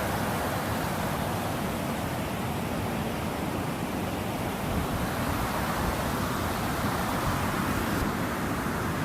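Waterfall rushing: a steady, even roar of falling water with no breaks.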